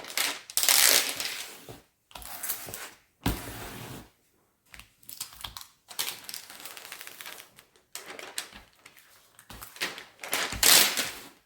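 Plastic cover sheet of a diamond painting canvas rustling and crinkling in a run of irregular bursts as it is handled and smoothed down, loudest about a second in and again near the end.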